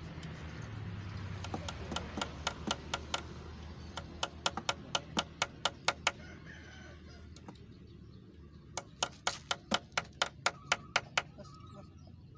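Hammer tapping nails in three runs of quick, sharp taps, about four or five a second, as raised acrylic letters are fixed in place.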